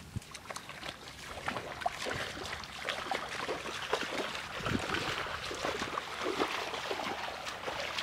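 Tall grass rustling and crackling as people push through it on foot, with scattered footsteps, growing louder.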